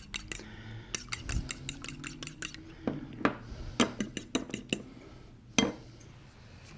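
Irregular clinks and knocks of a utensil against a mixing bowl as egg is beaten by hand into éclair choux pastry dough.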